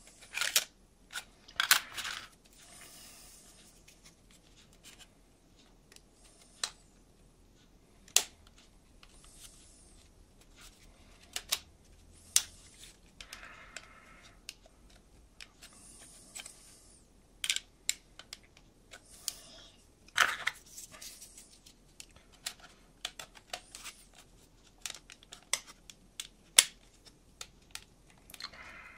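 Laser-cut wooden kit parts being handled and pressed together by hand: scattered small clicks and taps of wood on wood, with a few brief rubbing and rustling sounds in between.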